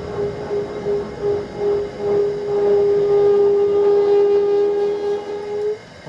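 A steady single-pitch warning tone in an Airbus H145 helicopter cockpit. It pulses at first, then holds continuously over the low running noise of the helicopter, and cuts off abruptly near the end.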